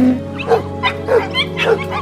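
A dog yipping in a quick run of short, sharp barks, about three a second, over steady background music.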